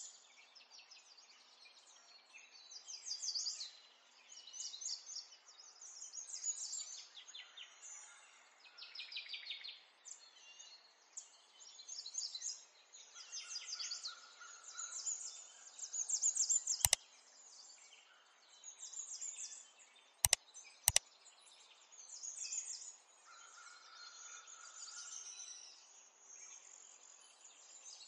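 Computer keyboard typing in short, quick bursts, with three sharper single clicks about two-thirds of the way through.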